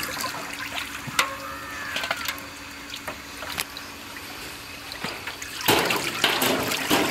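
Water sloshing and splashing as a heap of small fish is washed by hand in a tub, with a few sharp wet slaps of fish; the splashing grows louder for the last second and a half.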